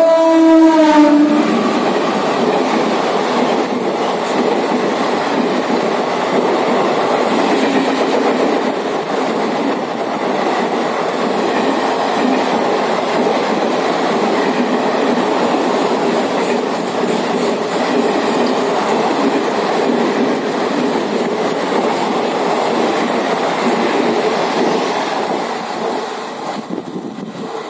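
Horn of a WAP4 electric locomotive sounding and cutting off about a second in, then the express train's coaches running past at speed in a loud, steady rush that falls away near the end as the train recedes.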